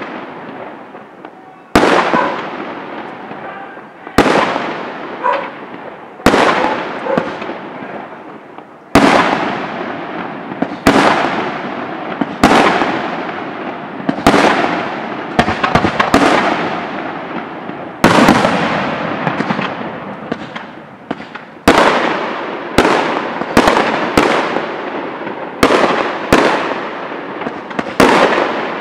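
Aerial firework shells bursting one after another: a sharp bang every second or two, each followed by a long rolling echo. The bangs come faster in the second half.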